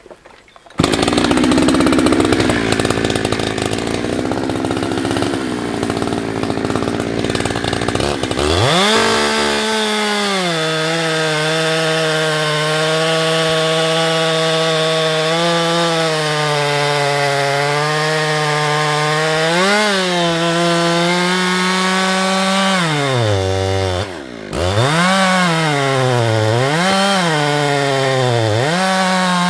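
Husqvarna 365 two-stroke chainsaw cutting firewood: a loud rough stretch starts suddenly under a second in, then at about 8 s the engine climbs to a high steady rev that wavers as the chain works through the wood. Around 24 s it drops briefly, then comes back up in several quick revs near the end.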